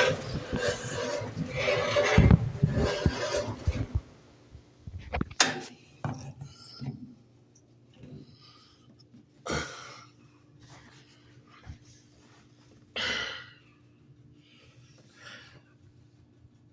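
GE washing machine making a harsh grinding, rasping noise that stops about four seconds in. After that come a faint steady hum and a few short scraping noises.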